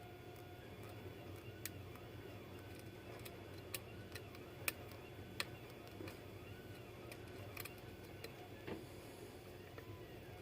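Lock pick and tension wrench working the pins of a pin-tumbler lock: faint, irregular small clicks.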